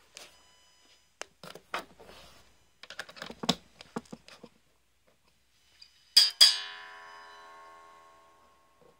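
Electric guitar played through a Vintage Champ Box effect pedal: a few light clicks and muted string taps, then about six seconds in a chord struck twice and left ringing, slowly fading away.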